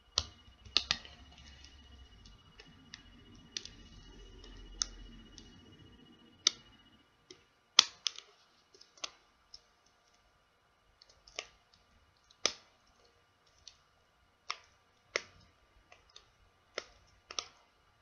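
Sharp, irregularly spaced small clicks and taps of plastic phone parts and a small tool being handled and pressed together during reassembly of a Huawei Ascend G300 smartphone, with a faint rustle of handling in the first few seconds.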